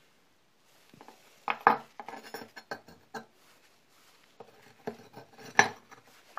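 Short steel bar offcuts knocked together and set down on a workbench: sharp metal clinks and clunks, the loudest about a second and a half in and again near the end, with lighter clicks between.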